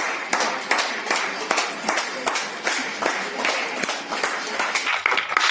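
Hand clapping: several people clapping at once in quick, irregular claps.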